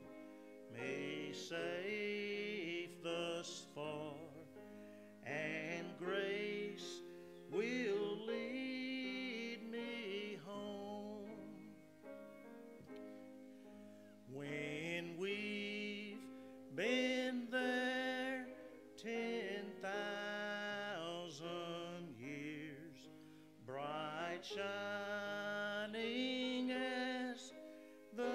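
A congregational hymn: a man's voice leads the singing phrase by phrase, with vibrato, over instrumental accompaniment that holds long, steady chords.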